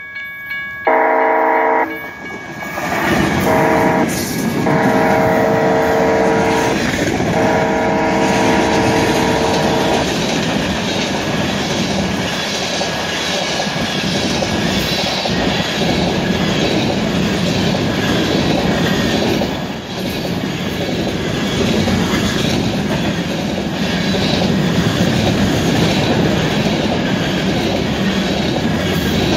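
Freight locomotive's multi-tone horn sounding several blasts for the grade crossing, the last one about three seconds long. Then the train passes close by, its covered hopper cars giving a steady rumble and wheel clatter.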